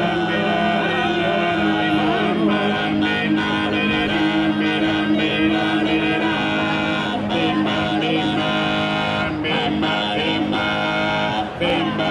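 Group of men singing together in close harmony over a held low drone.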